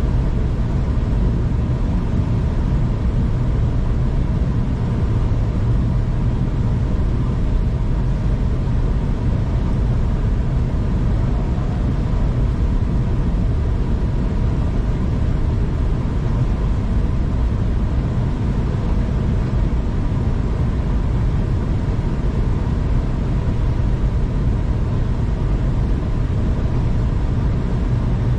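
Steady rumble of a passenger train running along the track, heard from inside the carriage, with a faint steady whine underneath.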